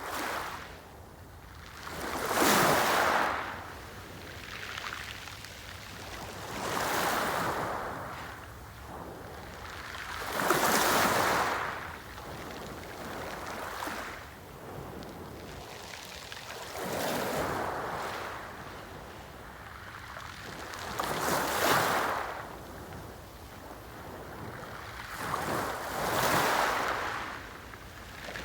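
Sea waves breaking one after another, about every four to six seconds. Each swells into a rush of surf and then falls away.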